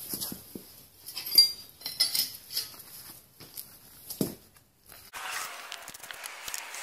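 Hammer tapping a cut-out kukri blade blank loose from the flat steel bar it was cut from: a string of irregular light metallic clinks and knocks, with a thud just after four seconds as the blank comes free. About five seconds in, the strikes stop and a steady background hiss takes over.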